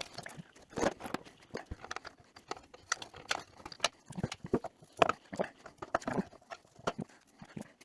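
Irregular clicks, taps and knocks of hand work with a tool on a glued-on starter button and its switch housing, sharpest at the start and again about five seconds in.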